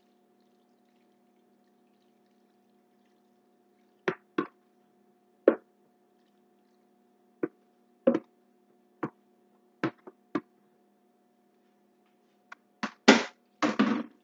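Macaroni and cheese being tipped and scooped from a plastic mixing bowl into a cast iron skillet. About a dozen short, scattered knocks and taps are heard, with a few longer, noisier handling sounds bunched near the end, over a faint steady hum.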